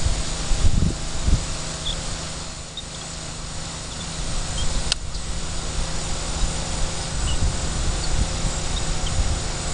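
Wind buffeting the microphone as an uneven low rumble, with a few faint short high chirps scattered through it and a single sharp click about five seconds in.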